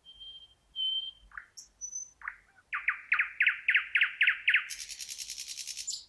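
Thrush nightingale singing one song phrase. It opens with thin whistles and a few short notes, then gives a run of about eight loud, evenly spaced notes, and ends in a fast, high rattle that cuts off suddenly.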